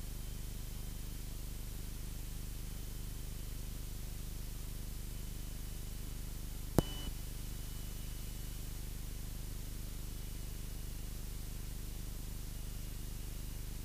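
Steady low drone of a Cessna 172's engine and propeller in the cabin at reduced cruise power, heard dull and muffled, with a faint thin high whine coming and going. About seven seconds in, a sharp click with a short beep, then a smaller click just after.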